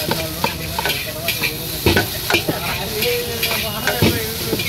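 Metal spatula scraping and clanking against a large metal wok as egg noodles are stir-fried, over a steady sizzle of frying. The knocks come irregularly, the loudest about two seconds and four seconds in, some leaving the pan ringing briefly.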